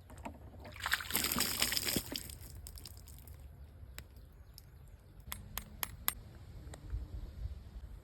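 Water splashing and sloshing for about a second and a half, then a few sharp clicks.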